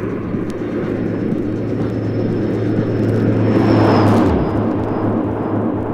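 A vehicle-passing sound effect in a house track's intro, over a steady low hum. The noise swells to a peak about four seconds in, with a faint high tone sliding down as it passes, then falls away while low regular pulses start.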